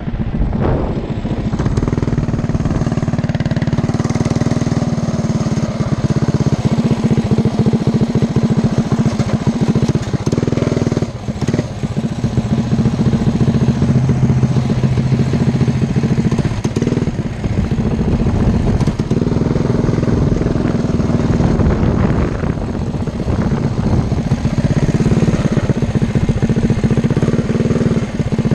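Predator 212 Hemi single-cylinder four-stroke engine on a Coleman CT100U mini bike running under way, heard close up from on the bike, with the throttle dropping off briefly a few times.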